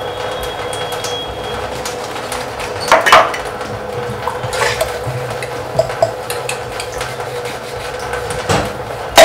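Dishes being washed by hand at a kitchen sink: cups, a mug and a steel tumbler knock and clink against the sink and each other. The loudest clatter comes about three seconds in, and a second one comes a little later, over a steady background hum.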